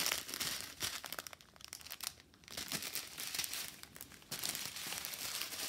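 Plastic packaging of a diamond painting kit being handled: small bags of resin drills and the canvas's plastic wrap crinkling, with a brief lull about two seconds in.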